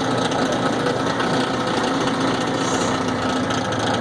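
Kawasaki Mule 4010 utility vehicle running with a steady mechanical drone. It carries the abnormal noise caused by incorrectly clocked drive shaft universal joints after the crankshaft replacement.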